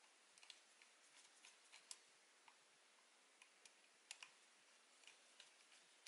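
Faint scattered clicks and taps of small screws and a screwdriver on the Agidel electric shaver's plastic housing as the cutter frame's screws are turned in loosely, with the sharpest clicks about two and four seconds in.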